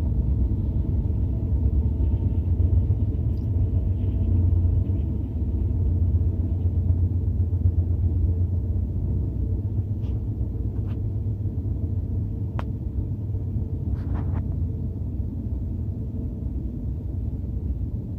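BNSF double-stack intermodal freight train rolling past in a steady low rumble, with a few faint clicks in the second half.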